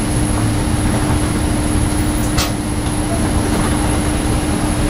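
Steady droning hum of an airliner cabin's air-conditioning and ventilation during boarding, with a constant low tone running through it. A short sharp click comes about two and a half seconds in.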